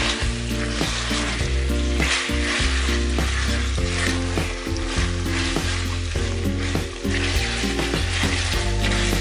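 Sauce-coated udon noodles and chicken sizzling in a stainless-steel frying pan as a spatula keeps stirring and turning them, the sizzle swelling and fading as the food is moved. Background music with a low bass line plays underneath.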